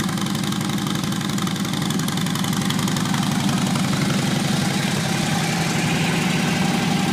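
2011 Harley-Davidson Road Glide Custom's V-twin engine idling through its stock exhaust, with a steady, even pulsing beat, getting a little louder in the second half.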